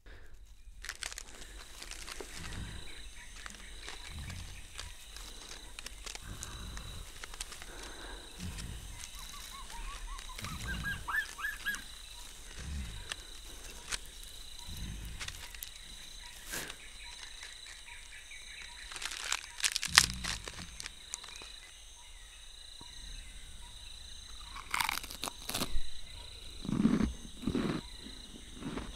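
Designed jungle soundscape: a steady insect drone with scattered bird chirps, under a series of heavy low thuds every second or two. Sharp cracks come about two-thirds of the way through, and deep animal growls come near the end.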